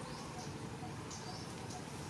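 A few short, high animal chirps over a steady low hum.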